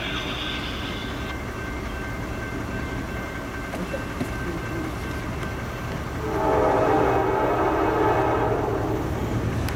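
Approaching Norfolk Southern diesel freight train rumbling low and steady; about six seconds in, the lead locomotive's multi-chime air horn sounds for about three seconds.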